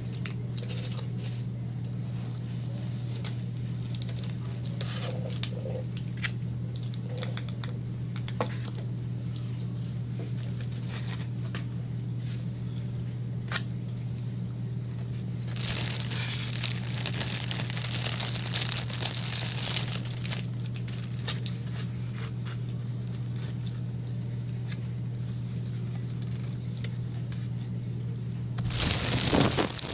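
Crinkling and rustling of food packaging handled at the table, loudest in two spells, one around the middle and one near the end. Small clicks and taps come in between, over a steady low hum.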